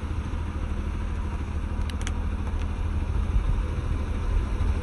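Car engine running with a steady low rumble as the car creeps forward and its tyre rolls onto a soft plush toy; a couple of small clicks about two seconds in.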